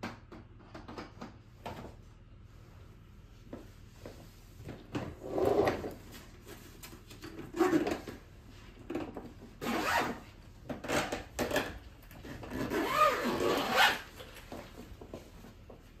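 A fabric rolling suitcase being handled and lifted: scattered light knocks, then rubbing and scraping in several short bursts, the longest about a second and a half near the end.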